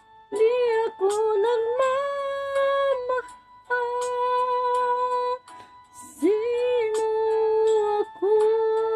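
A woman singing a slow Tagalog song, holding long notes and scooping up into each of four phrases with short breaths between them.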